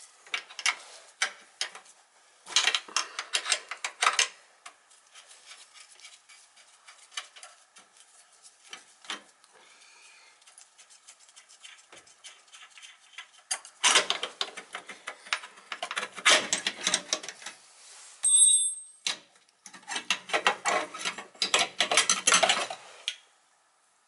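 Bursts of metallic clattering, clicking and scraping from hand tools and parts of a Beckett oil burner being taken apart for servicing, with a short high metallic ring about three quarters of the way through.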